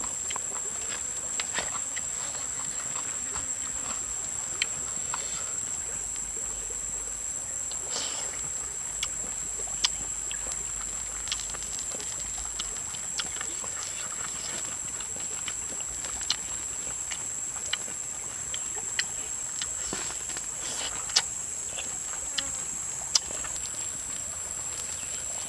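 Insects droning steadily at one high pitch, with scattered short sharp clicks and taps.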